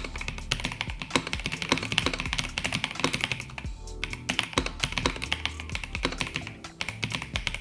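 Fast, continuous typing on a Logitech G316 X 98 gasket-mounted mechanical keyboard with linear switches: a dense run of thocky keystrokes, with background music.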